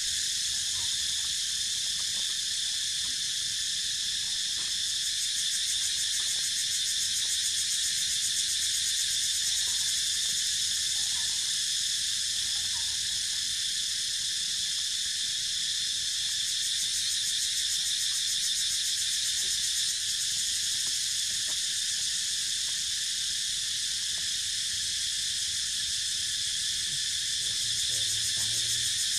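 Dense, steady chorus of insects, high-pitched and unbroken.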